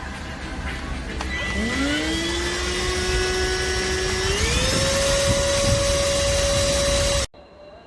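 K7 handheld cordless vacuum cleaner's motor spinning up with a rising whine, holding steady, then stepping up to a higher-pitched whine about halfway through as it is switched to a higher power setting. It cuts off suddenly near the end.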